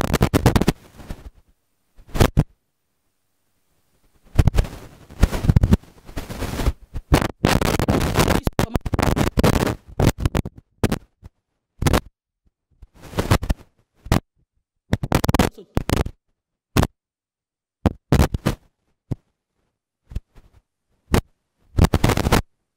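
Harsh crackling noise in irregular bursts that cut off abruptly to dead silence between them: a broken-up, distorted microphone signal in which no clear speech comes through.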